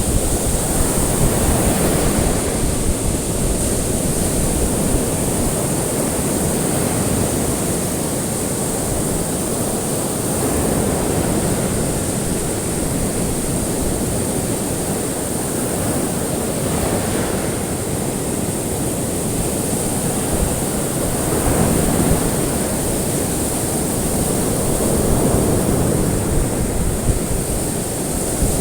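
Ocean waves washing onto a shore, the surf swelling and easing every few seconds, with a steady high-pitched hiss underneath.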